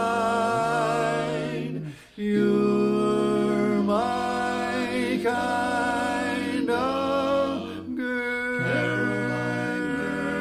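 Barbershop quartet singing a cappella in four-part close harmony: long held chords with vibrato, broken by a short gap about two seconds in and a brief dip near eight seconds.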